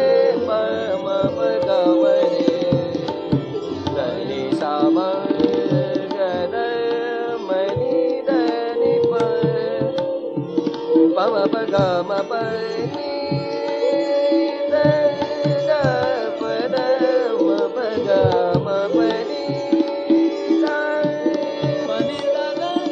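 Hindustani classical vocal music: voices gliding through ornamented melodic runs over a steady drone, with tabla accompaniment.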